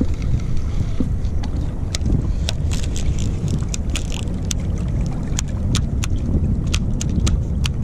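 Sharp, irregular clicking of a baitcasting reel being worked by hand, about two or three clicks a second, the reel running sticky and in need of cleaning. Steady wind rumble on the microphone underneath.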